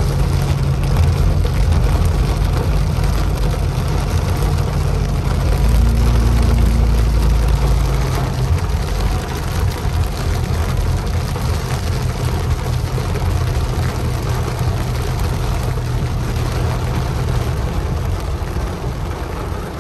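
Cabin noise of a moving car in heavy rain: a steady engine and road hum, with rain hitting the windshield and roof. A deeper low rumble swells about six seconds in and lasts a couple of seconds.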